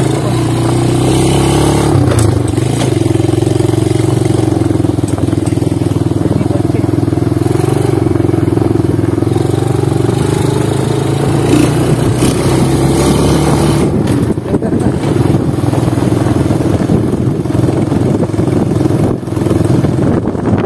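Motorcycle engine running steadily under way, with a steady engine note. From about fourteen seconds in the sound turns rougher and choppier.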